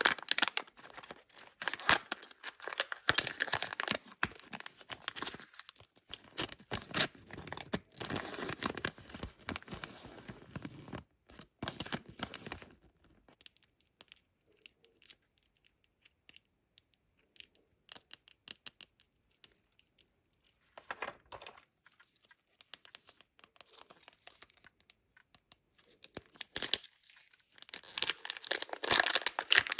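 Kinder Joy egg wrappers and toy packets being torn open and crinkled by hand, a dense crackling that dies down about halfway through to a few scattered small clicks and taps, then crinkling again near the end.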